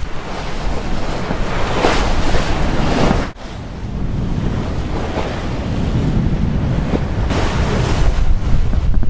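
Wind buffeting the microphone over the rush of water along a sailboat's hull under way, the wash swelling and fading as waves pass. The sound drops out abruptly for an instant about three seconds in.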